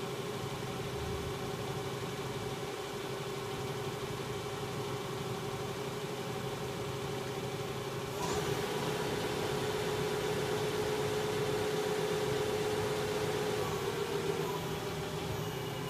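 Hyundai Wia L150A CNC lathe running: a steady machine hum with a held whine. It grows louder about eight seconds in and drops back near the end.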